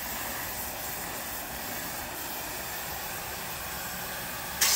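Gas torch burning with a steady rushing flame noise as it heats a carbon-clogged two-stroke muffler to burn the carbon out. Near the end a loud hiss of compressed air from a blow gun suddenly starts.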